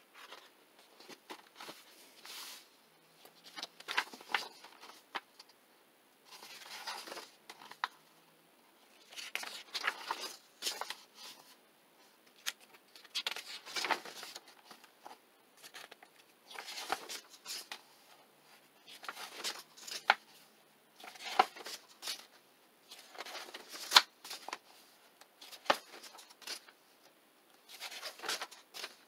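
Pages of a softcover coloring book being turned one after another by hand: paper sliding and rustling, with sharp snaps as each sheet flips over, about one page every two to three seconds.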